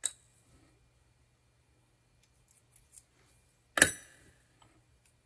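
Small metal parts of a disassembled volume-control potentiometer clicking as they are handled: a sharp click at the start, a few faint ticks, then a louder clack with a short ring about four seconds in.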